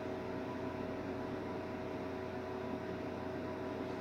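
Steady hum and hiss with a few held tones, even throughout, like a small motor or fan running.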